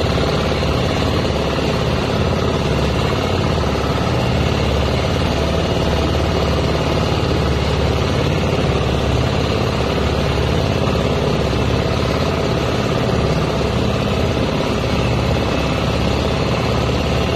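Small wooden boat's engine running steadily under way, a constant drone that does not change, mixed with the rush of water along the hull.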